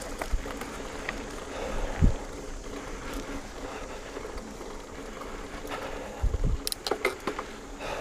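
Mountain bike being ridden along a dirt trail: steady tyre and wind noise, with a low thump about two seconds in and again past six seconds, followed by a quick run of rattling clicks as the bike goes over rough ground.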